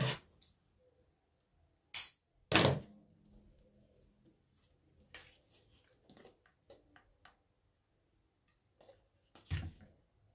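Craft supplies being handled and set down on a tabletop: a few sharp knocks and clicks, the loudest about two and a half seconds in and another near the end, with soft ticks in between.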